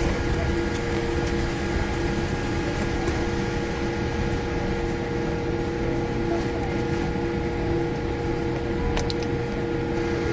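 Steady cabin hum inside a Boeing 787-8 Dreamliner on the ground after landing: an even rush with several constant tones, and a couple of faint clicks about nine seconds in.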